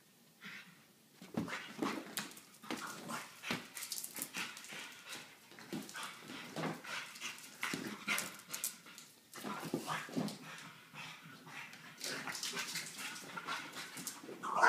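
A French bulldog puppy playing with a giant inflated ball, making a run of short, irregular scuffs and bumps mixed with the dog's own noises. A louder bump comes at the very end.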